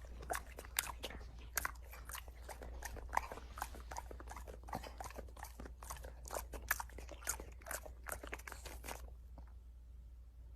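A dog chewing something crunchy: a rapid, uneven run of crisp crunches that stops about nine seconds in, over a steady low hum.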